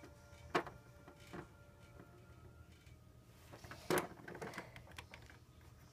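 A small plastic doll figure handled and set down on a plastic dollhouse floor: a few light knocks and clicks, the loudest about four seconds in, over a faint steady hum.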